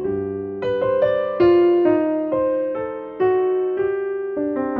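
Slow piano music: single notes and chords struck about once or twice a second, each left to ring and fade.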